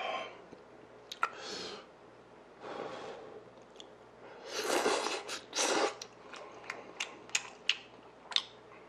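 Mouth sounds of eating noodles: several long noisy slurps, the loudest about five seconds in, then chewing with a run of short wet smacks and clicks.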